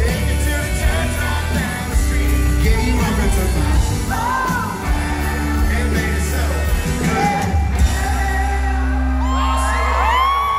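Live country band playing through the PA in a large hall, with a man and a young girl singing into microphones over a heavy bass line. Near the end a voice glides up into a long held high note, with whoops.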